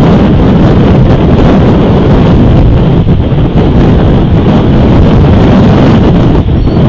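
Strong wind buffeting the microphone: a loud, steady, low rushing rumble.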